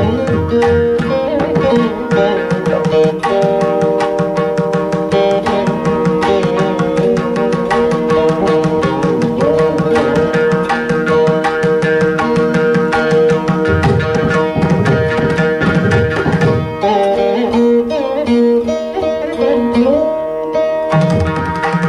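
Carnatic music in raga Begade, Rupaka tala: a Saraswati veena plays the melody with sliding, wavering notes over a fast, dense run of mridangam strokes, with morching accompaniment.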